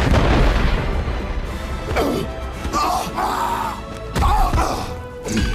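Film soundtrack of an animated dragon battle: music score under battle sound effects, with a heavy rumble and sharp crashing impacts about two seconds in and again about four seconds in.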